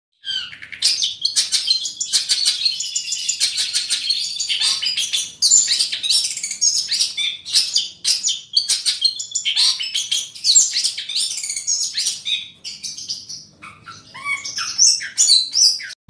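Caged long-tailed shrike (cendet) singing a rapid, nearly unbroken run of high chirps and trills, with a brief lull about five seconds in and a quieter stretch near the end.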